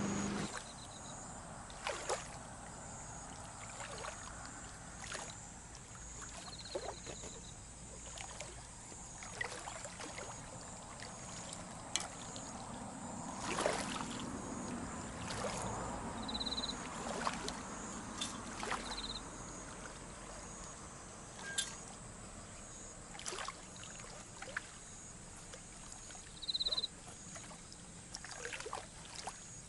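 Outdoor waterside ambience: insects chirping in a steady, fast repeating pulse, with short higher chirps every few seconds and scattered sharp clicks and small knocks.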